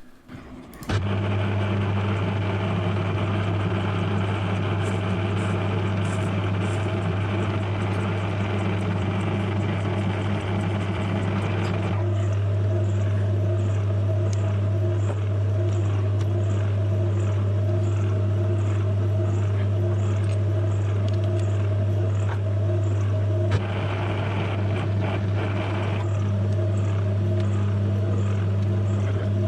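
Small metal lathe switched on about a second in and running steadily with a strong low motor hum while a small brass or steel part is trimmed to size. A higher hiss over the hum drops away about halfway through and comes back briefly near the end.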